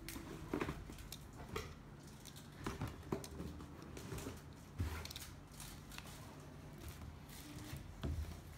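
Small clicks and light taps of iPhone 6 replacement LCD screen assemblies being handled and plugged into a test phone, with a couple of louder knocks about five seconds in and near the end.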